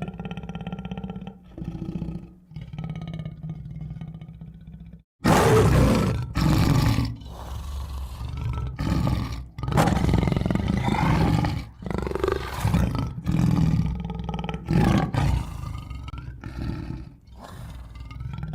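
Tiger growling and roaring: lower calls at first, then, after a short break about five seconds in, a series of much louder roars in repeated bursts.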